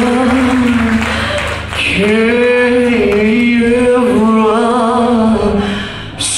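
A live rock band playing, with female lead vocals holding long, wavering sung notes over guitars and drums. The music dips briefly about two seconds in, and a sharp hit comes near the end.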